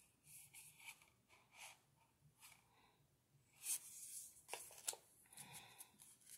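Very quiet handling of a tarot deck: faint rustling and sliding of cards as one is moved off the front of the deck, with a few soft clicks about four seconds in.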